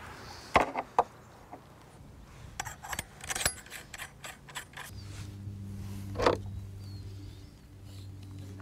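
Light clicks and rattles of shotgun choke tubes and their plastic cases being handled, and a choke tube being screwed into the shotgun's muzzle. From about five seconds in a steady low hum runs underneath, with one short louder sound near the end.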